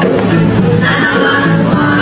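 Acoustic guitar strummed live, with a voice singing a melody over it.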